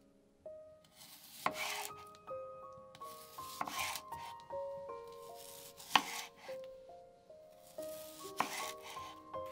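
Chef's knife slicing an onion into rings on a bamboo cutting board: a crisp crunch through the onion, then a sharp knock of the blade on the board, four times about two seconds apart. Soft background music plays under it.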